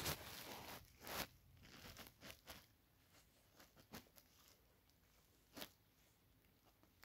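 Rustling and handling noise close to a phone's microphone as the phone is moved and clothing rubs against it, mostly in the first second or so, then a few short faint rustles in near quiet.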